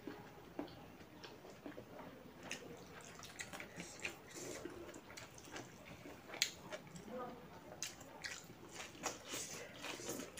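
Close-miked eating sounds: wet chewing and lip smacks with scattered sharp mouth clicks, from smoked pork intestine and rice eaten by hand.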